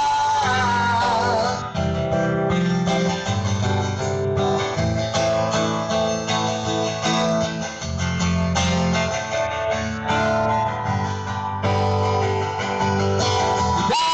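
Live band music played loud over a PA system, led by guitar, with a singer's voice briefly near the start and again at the very end.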